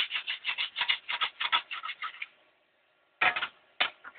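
Edge of a sheet of glass scraped rapidly back and forth over a glass 3D-printer build plate, about four short rasping strokes a second, taking off dried hairspray. The strokes stop a little past halfway, and two more come near the end.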